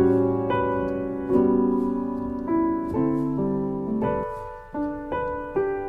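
Piano music: slow chords, each struck and left to fade before the next.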